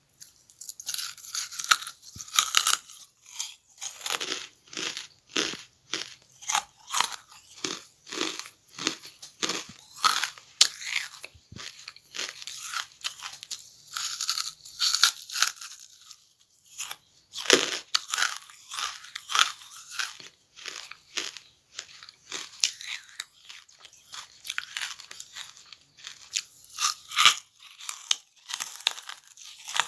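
A person chewing pieces of charcoal: a steady run of crisp, brittle crunches, about one to two a second.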